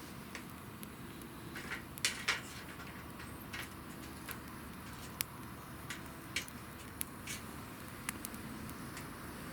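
Wood fire crackling: scattered sharp pops and snaps over a low steady hiss of flame, with a cluster of louder pops about two seconds in.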